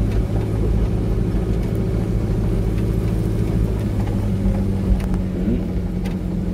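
Pickup truck engine running at low speed along a rough dirt track, a steady low drone whose pitch shifts slightly about four to five seconds in. A few short knocks sound over it, the loudest about five seconds in.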